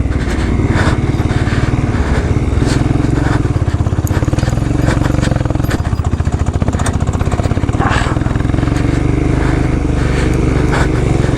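Royal Enfield Himalayan's 411 cc single-cylinder engine pulling steadily under load up a steep, rough hill climb, with occasional sharp clicks and clatter from the bike and terrain.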